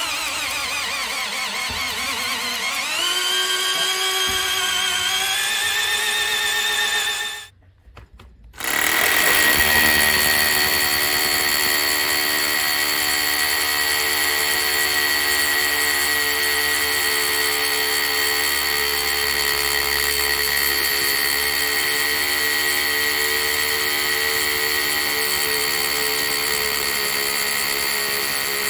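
Parkside PABH 20-Li B2 cordless hammer drill boring a 16 mm hole through a wooden block, its motor pitch dipping and then climbing about three seconds in as the load changes. After a brief break about eight seconds in, it runs steadily, hammer-drilling into brick with an 8 mm masonry bit.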